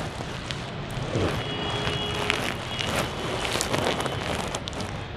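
Steady rushing background noise with scattered sharp clicks, and a brief steady two-pitch tone about a second and a half in.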